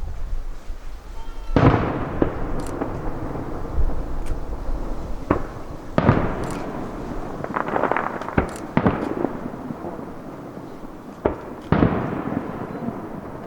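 Aerial firework shells bursting overhead: about five sharp booms, each trailing a long rolling echo, with a cluster of crackling pops in the middle.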